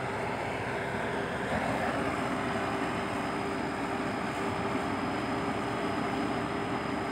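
Komatsu PC120-5 excavator's diesel engine running steadily, with a steady hum held over the engine noise.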